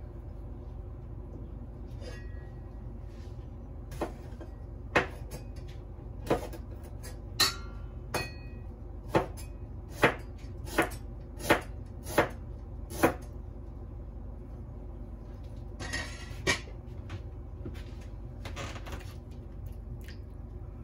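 Knife chopping on a cutting board in slow, separate strokes: about a dozen sharp knocks, roughly one a second, with a pause and then two more later, over a steady low hum.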